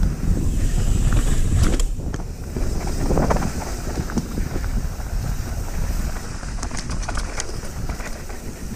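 Wind buffeting the microphone of a mountain bike rider's action camera over a steady low rumble of the bike rolling down a dirt trail. Bursts of sharp clicks and rattles from the bike come about two seconds in and again around six to seven seconds in.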